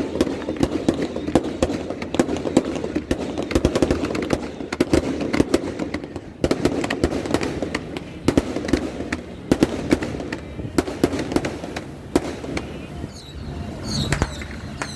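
Strings of firecrackers going off in a dense, rapid crackle of bangs over a steady low rumble, thinning out near the end.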